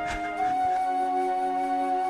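Background score music: a flute holding one long note over softer sustained notes.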